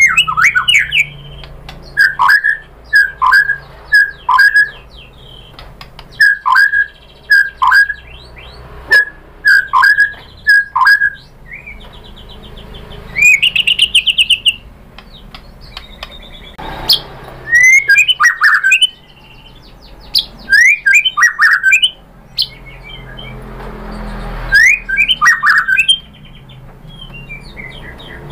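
White-rumped shama (murai batu) singing. Short falling whistles come in groups of two to four, then a fast trill about halfway through, then louder, more varied phrases in the second half.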